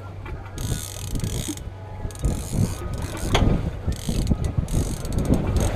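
Fishing reel ratcheting in repeated stretches about a second long, worked by hand against a hooked fish pulling on a hard-bent rod.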